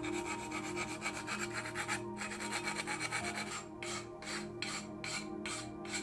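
Metal file rasping back and forth inside the steerer tube of a bicycle fork crown: a quick run of short scraping strokes at first, then slower, separate strokes about two or three a second in the second half.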